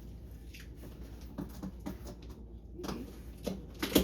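Hands picking at and handling a taped-up retail package: scattered light clicks and rustles as the tape and packaging resist opening.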